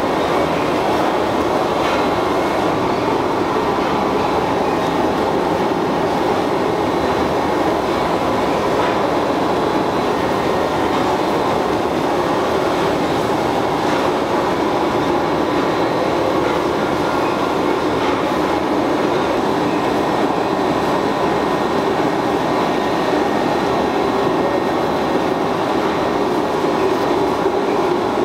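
Steady machinery noise of a food-factory floor: a dense, even rumble with a faint steady whine running through it and no pauses.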